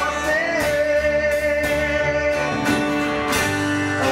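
Background music: a gospel song with a singing voice over guitar accompaniment.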